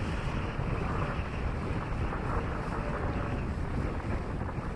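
Wind buffeting the microphone on the bow of a motor yacht under way, a gusty low rumble over a steady rush of air and water.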